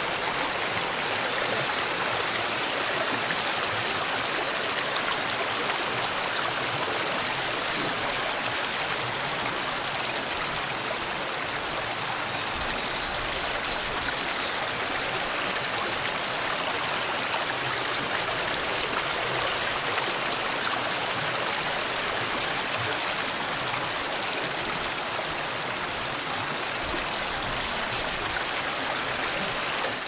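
Mountain stream flowing over and between rocks: a steady rush of running water.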